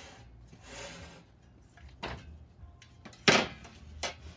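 Metal rail pieces being handled and set down: soft rustling, a light click about two seconds in, and a sharp knock just after three seconds, the loudest sound.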